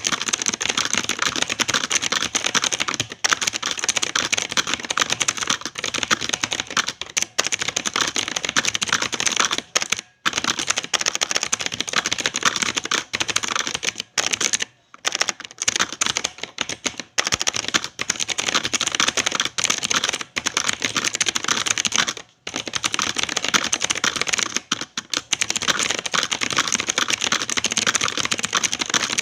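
Fast typing on a Quantum QHM9800 mechanical keyboard: a dense, continuous run of key clicks that breaks off briefly three times.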